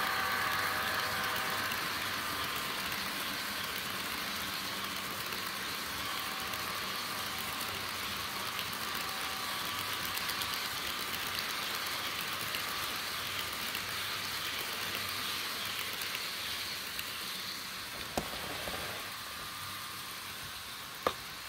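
Rapido F40PH model locomotive running on track: a steady rolling hiss that slowly fades, with two sharp clicks near the end.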